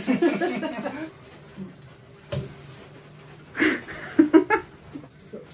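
People's voices in short bursts of untranscribed talk, with a quieter stretch between them broken by a single sharp click.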